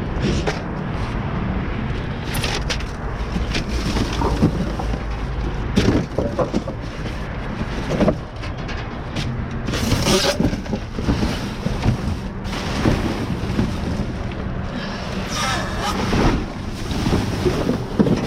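Wind buffeting the microphone over a steady low rumble, with scattered knocks and rustles of things being handled and moved.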